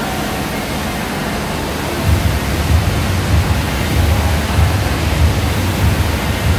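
Air rowing machine's fan flywheel whooshing steadily as it is rowed, with a low rumble that comes back about two seconds in.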